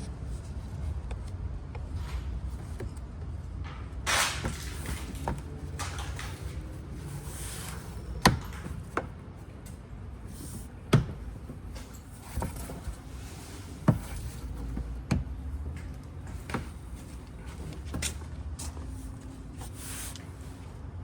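A plastic car undercover panel being worked into place under the bumper: a scraping rustle about four seconds in, then several sharp plastic knocks and clacks a second or few apart.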